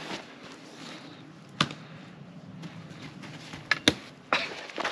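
A few sharp clicks and knocks from camping and hunting gear being handled, the loudest near the end, over faint rustling.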